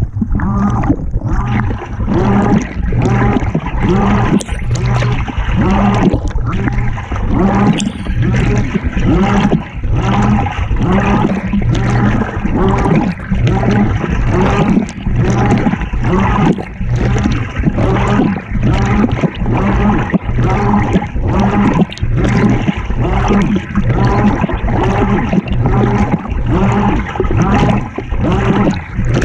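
Water sloshing inside a 2018 GE GTW220ACKWW top-load washing machine as it agitates the load, surging about once a second with each stroke over the steady hum of the motor.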